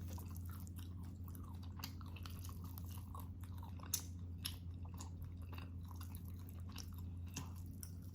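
Close-miked chewing of spicy beef kaldereta: soft, wet mouth clicks and smacks, with a sharper click about four seconds in, over a steady low hum.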